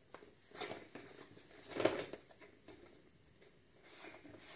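Faint handling noises from a small cardboard product box being picked up and moved: a few soft rustles and light knocks, the loudest about two seconds in, over quiet room tone.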